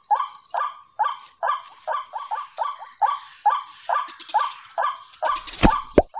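White-breasted waterhen (ruak-ruak) calls played on a loop from an electronic bird caller, a short call repeating at an even beat of about three a second, over a steady high hiss of insects. Two loud knocks come near the end.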